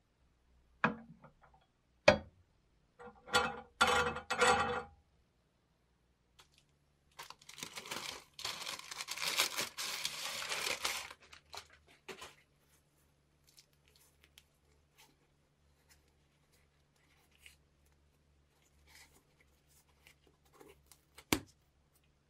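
Crusty bread being cut on a restored Raadvad hand-lever bread slicer. Several sharp knocks and short scraping strokes come in the first five seconds, then a crackling cut through the crust lasts about four seconds, and a single sharp knock comes near the end.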